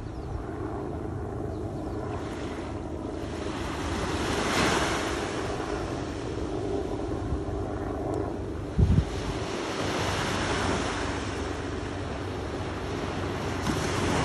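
Small waves washing onto a sandy beach, swelling and easing every few seconds, with wind on the microphone. A faint steady low hum runs underneath, and a brief low thump comes about nine seconds in.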